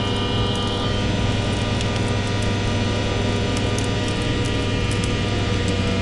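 Electronic drone music: a dense cluster of sustained tones layered over a steady low hum, with faint scattered crackles on top. A high tone in the cluster drops out about a second in.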